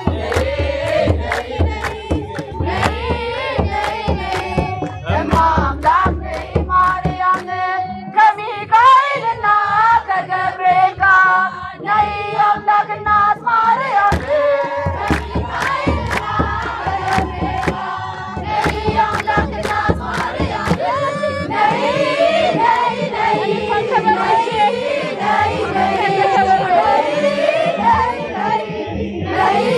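A crowd of voices singing an Ethiopian Orthodox hymn (mezmur) together, with steady rhythmic hand clapping and the beat of a kebero drum.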